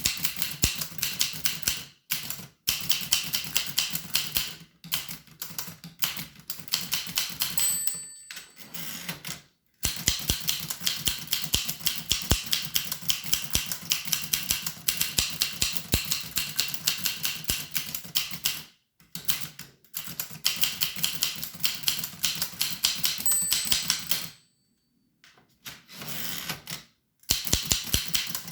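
Typing on an 1895 Williams No. 1 typewriter: quick runs of sharp clacking keystrokes with short pauses between them. Twice, about 8 s and 23 s in, a brief bell ring is followed by a longer pause, the line-end bell before a carriage return.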